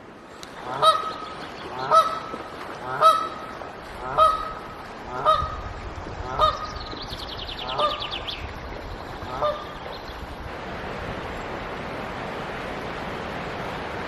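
A bird giving a series of eight loud calls, about one a second and spacing out slightly toward the end, with a brief high trill overlapping about seven seconds in. After the calls stop, a steady rushing noise comes up.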